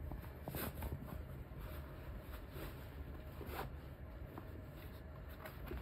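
Faint rustling of a fabric drawstring pouch being untied and a leather watch roll slid out of it, with a few brief scratchy brushes.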